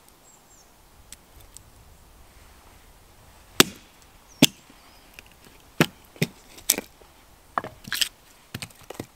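Small hatchet chopping a short piece of wood held upright on a log, splitting it into kindling: about nine sharp wooden chops at an uneven pace, starting a few seconds in.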